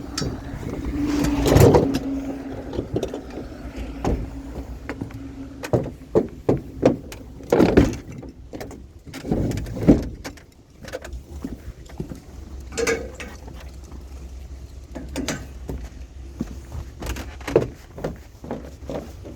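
Scattered knocks and clunks of salvaged junk being handled and moved, over a low steady rumble, with a steady hum in the first five seconds or so.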